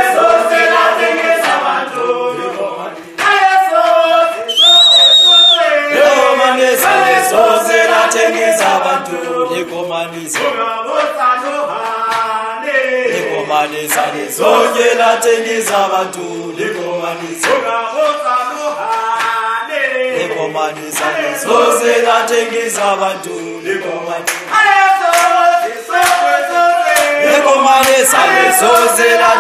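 A crowd of voices singing a revolutionary struggle song together, with hand claps through it. One short shrill high note sounds about five seconds in.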